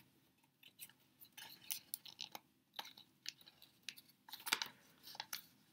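Faint crinkling and rustling of origami paper in short, irregular crackles as the crane's neck is opened and the head is inside-reverse-folded, with a louder run of crackles about four and a half seconds in.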